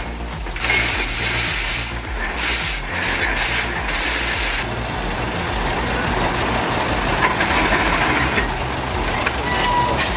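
Steam shovel venting steam in several loud hissing bursts during the first half, over a steady low rumble of machinery.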